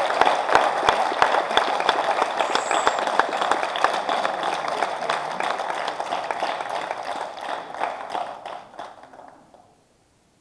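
Audience applauding, a dense patter of hand claps that thins out and dies away about nine seconds in.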